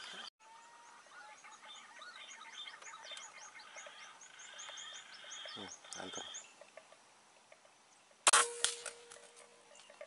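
Birds chirping with many short falling notes, then about eight seconds in a single loud, sharp rifle shot with a brief ringing tail.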